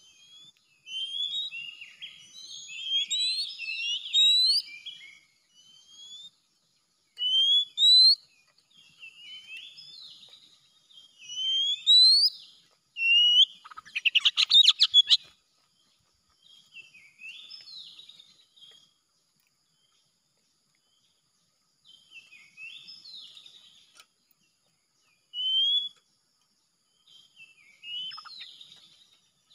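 Oriental magpie-robin singing: phrases of quick rising whistles and varied chirps, separated by short pauses, with a brief harsh rattling burst about halfway through.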